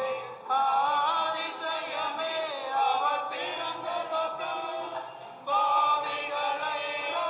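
Group of men singing a Tamil Christmas carol together, with brief breaks between phrases just after the start and about five seconds in.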